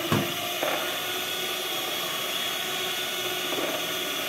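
Handheld electric mixer running steadily, its beaters whisking eggs in a glass bowl, with a couple of short knocks in the first second.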